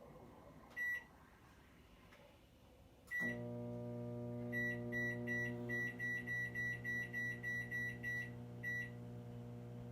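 Microwave oven being set and started: a keypad beep, then another beep as the oven starts and its steady electrical hum begins. A quick run of a dozen or so short beeps follows while the oven runs. It is cooking the caramel mixture on high power for 7 minutes.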